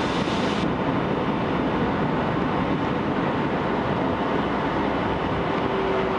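Cabin noise of a Boeing 757 with Rolls-Royce engines rolling along the ground, heard from a window seat over the wing: a steady rumble and rush of engine and wheel noise.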